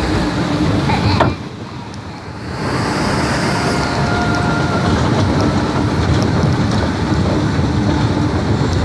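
Log flume boat being hauled up the chain lift hill: the lift chain running steadily with water rushing down the flume trough beside it, briefly quieter about a second in.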